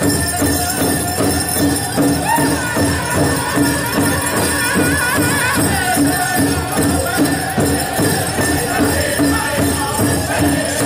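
Powwow drum group playing a big drum in a steady beat with voices singing, while dancers' bells jingle along.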